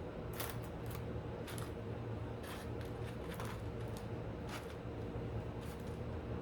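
Close-up chewing with short, wet mouth smacks, about seven of them at irregular intervals, over a steady low hum.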